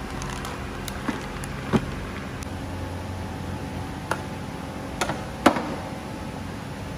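Automatic-transmission filters being handled: about five sharp clicks and knocks of the parts, the loudest two close together near the end, over a steady background hum.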